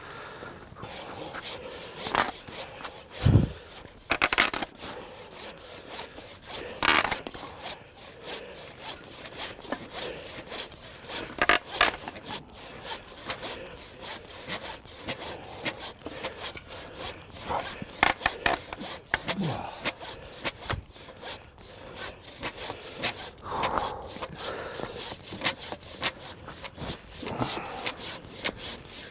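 Hand saw cutting through a green tree stem, with quick back-and-forth strokes repeating steadily. A single heavy thump about three seconds in.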